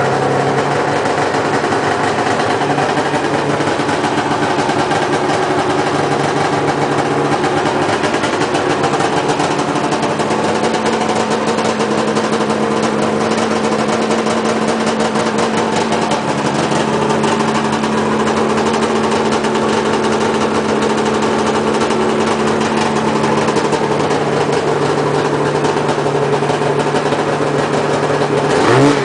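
Arctic Cat Wildcat 700 EFI two-stroke twin snowmobile engine idling steadily, its pitch shifting slightly a couple of times. Right at the end the revs start to rise.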